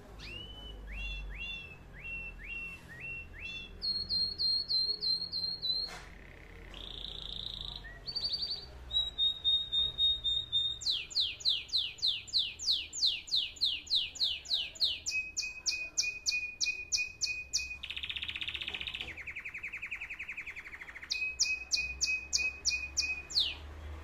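Canary singing a long song built of phrases of repeated notes, each phrase at its own pitch: rising chirps, high clear notes, a fast run of about five notes a second, and a buzzy rattle, with two short pauses in the first half.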